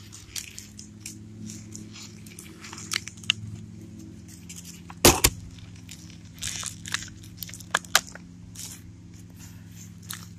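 Clear plastic blister packaging and small toy-figure parts being handled: scattered crinkles and clicks, with one sharp louder click about five seconds in. A steady low hum runs underneath.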